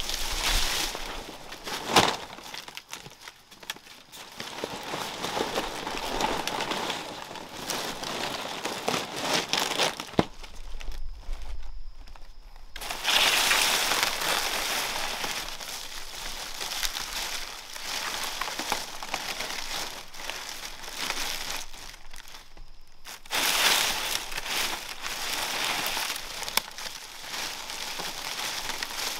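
Dry plant material rustling and crinkling as it is handled, with a couple of sharp knocks. The sound drops away for a couple of seconds midway and again briefly later on.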